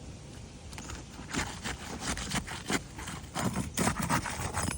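Irregular scraping, crackling and knocking on roof shingles, starting just over a second in and getting busier near the end, as work begins on lifting a wind-lifted shingle.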